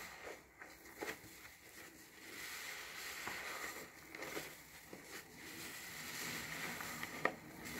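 Yellow foam car sponge squeezed and wrung by hand in thick soap lather, the foam squishing and crackling in slow waves. A sharp click shortly before the end is the loudest moment.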